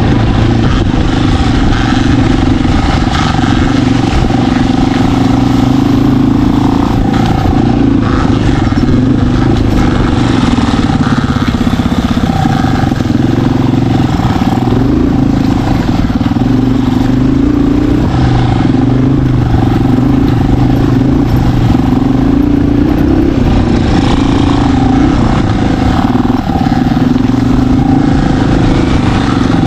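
Off-road vehicle engine running steadily under load, its revs rising and falling slightly.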